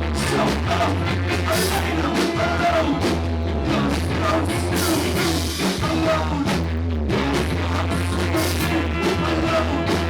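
Live rock band playing loudly, recorded through a camcorder's built-in microphone.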